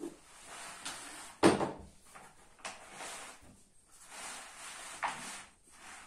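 Thick camp-bed fabric rustling and scraping as a frame pole is slid into its side sleeve, in several pushes, with a sharp knock about a second and a half in.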